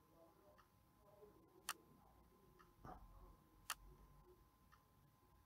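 Near silence with faint, evenly paced ticks about once a second, every other tick louder.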